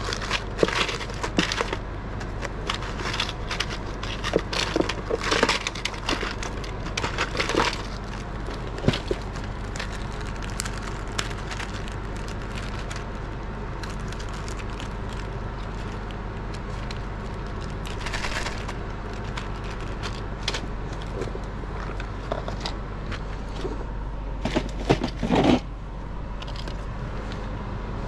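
Hands and tools working on a PlayStation console: irregular clicks, scrapes and crackles of plastic and metal, busiest in the first several seconds, with another cluster near the end, over a steady background hum.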